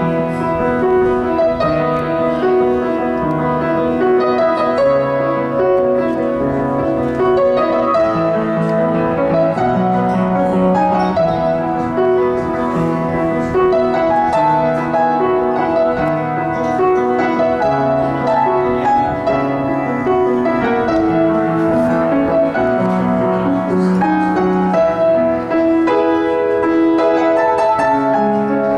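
Grand piano played solo: chords and melody notes held and ringing into one another at a steady, moderate pace.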